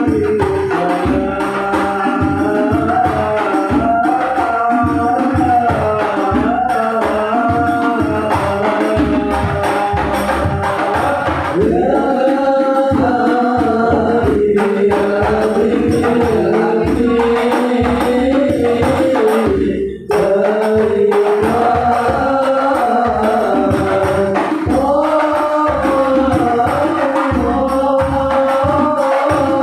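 Sholawat, Islamic devotional song in Arabic, sung over frame-drum percussion beating a steady rhythm, with a brief break about two-thirds of the way through.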